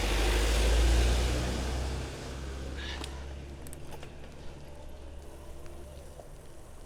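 A motor vehicle passing on a wet road, its tyre hiss and rumble loudest about a second in, then fading to a lower steady rumble.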